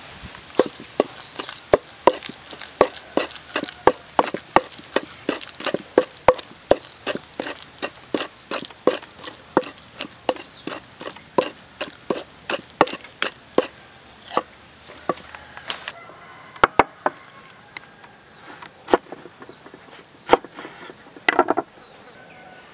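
Wooden pestle pounding a wet sauce paste in a wooden mortar: a steady rhythm of knocks, about two and a half a second. About fourteen seconds in it gives way to sparser, irregular knocks, with a quick cluster of them near the end.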